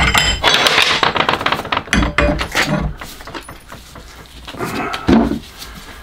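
Steel spanner and metal tools clanking and clinking on a workbench as a large open-ended spanner is fitted over the hex of a brass clack valve held in a vice: a quick run of sharp knocks, some with a metallic ring, in the first half, then lighter handling knocks.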